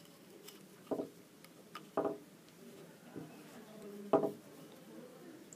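Three short murmured voice sounds from a person, the last and loudest a bit over four seconds in, with a faint murmur and quiet room sound between them.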